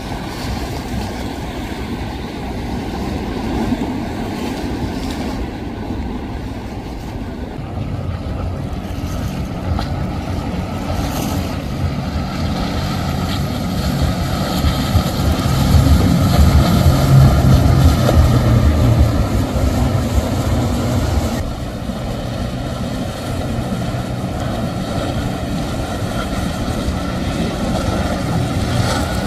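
Motorboat engines running with a steady low hum, growing louder through the middle and dropping off abruptly about two-thirds of the way through.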